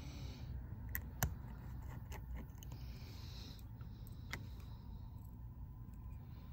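Scattered small clicks and taps of tools and phone parts being handled during repair, the sharpest about a second in, with a brief soft rubbing sound near the middle, over a low steady hum.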